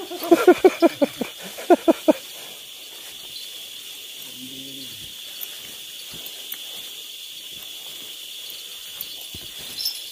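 Insects droning steadily in high pitch, opened by a short burst of about a dozen quick pitched calls lasting two seconds.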